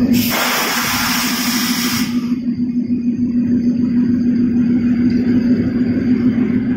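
Diesel locomotive's engine running at idle close by, a steady low hum. A loud hiss sounds over it for the first two seconds and then stops.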